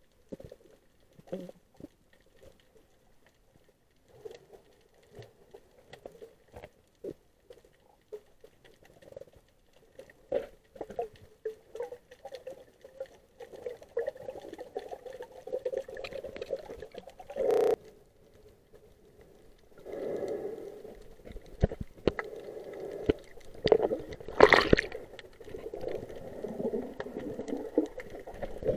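Underwater sound picked up by a camera in its waterproof housing while snorkeling: muffled sloshing water with scattered clicks and pops, growing busier and louder about two-thirds of the way in, with a sharp knock in the middle and another near the end.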